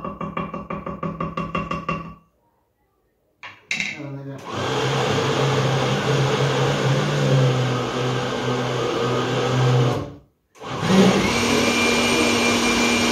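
Countertop blender puréeing a thick red chili paste for kimchi. After a short burst of rapid pulsing and a pause, it runs steadily for about six seconds, stops briefly, then spins back up to a higher, steady whine.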